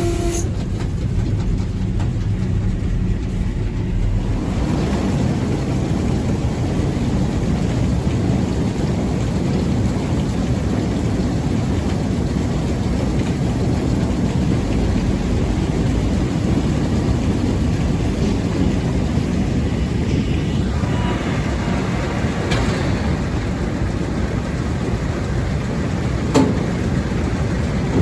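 Sugar beet piler's conveyors running: a steady, dense low noise, with a sharp click near the end.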